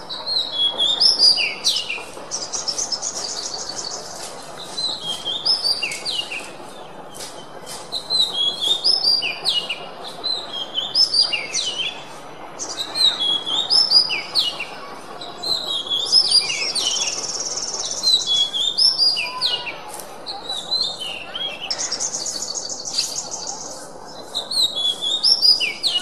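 Oriental magpie-robin (kacer) singing: bursts of varied sharp whistled notes, three times broken by a fast buzzy trill, with short pauses between phrases.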